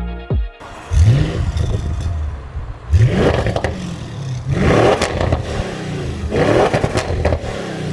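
Audi C7 RS6 twin-turbo V8 through a Milltek exhaust, revving up repeatedly, its note rising about four times. Each rev brings a rough crackling burst from the exhaust.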